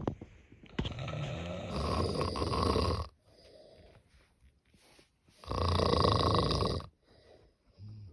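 Cat snoring in its sleep: two long snores about four and a half seconds apart, the first lasting over two seconds, with faint breaths between.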